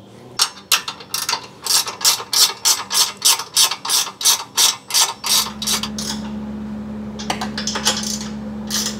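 Hand socket ratchet clicking through quick strokes, about four clicks a second, as a slider frame-mount bolt is snugged down. About five seconds in the clicking stops and a steady low hum takes over, with a few stray clicks.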